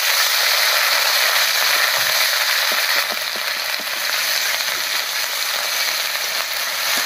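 Onion paste frying in hot oil in a wok: a steady sizzling hiss, with light scrapes and stirs of a spatula.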